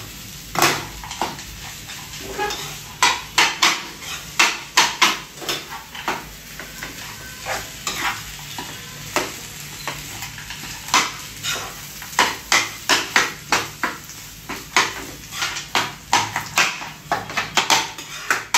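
Steel ladle stirring and scraping a thick mashed-potato cutlet filling around a nonstick kadai, giving irregular clinks and scrapes of metal on the pan.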